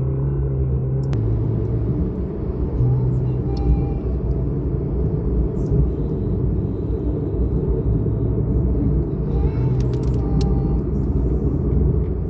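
A car driving: a steady low rumble of engine and road noise, with the engine note shifting in pitch now and then.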